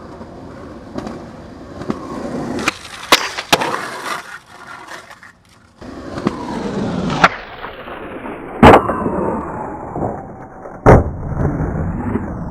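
Skateboard wheels rolling on concrete, broken by several sharp clacks of the board in the first few seconds. Two loud board impacts follow, one at about the nine-second mark and another about two seconds later, with rolling in between.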